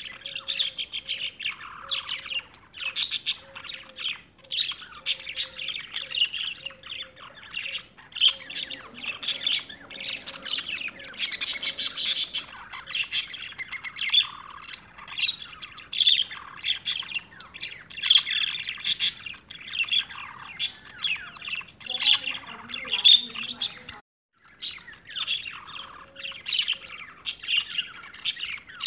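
Many small birds chirping and twittering in quick, overlapping short calls; the sound cuts out for a moment about four-fifths of the way through.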